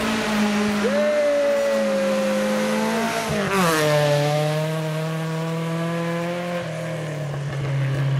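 Rally car engine revving hard as the car passes on a gravel stage. Its pitch holds high, falls sharply about three seconds in as the car goes by with a brief rush of gravel and tyre noise, then stays steady as it pulls away.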